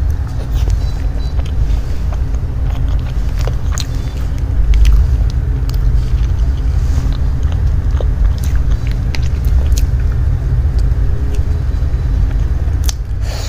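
Close-miked eating of a soft cake: chewing and small mouth and fork clicks scattered through, over a loud, steady low rumble.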